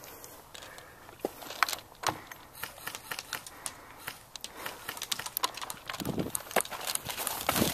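Scattered sharp clicks and rattles from an airsoft player's gun and gear as he moves, with rustling footsteps on dry ground building toward the end.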